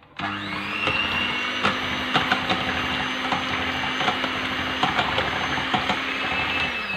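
Electric hand mixer switched on. Its motor spins up quickly to a steady whine as the twin beaters whisk cream in a glass bowl, with scattered clicks as they touch the glass. The motor slows down at the very end.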